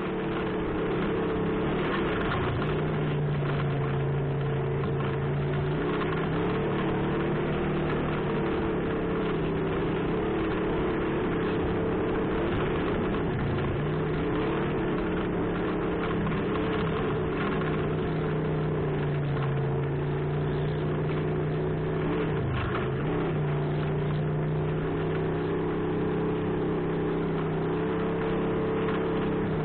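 Off-road vehicle engine running steadily while driving. Its pitch rises and falls a little, with brief dips in engine speed about halfway through and again about three-quarters in.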